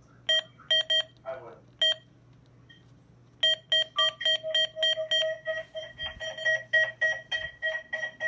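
Uniden Bearcat WX100 weather radio giving short electronic key beeps as its buttons are pressed. A few single beeps come in the first two seconds, then from about three and a half seconds a fast run of beeps, about three a second.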